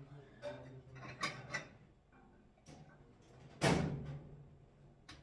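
Kitchenware being handled on a counter: a few light knocks, then one louder clunk about three and a half seconds in.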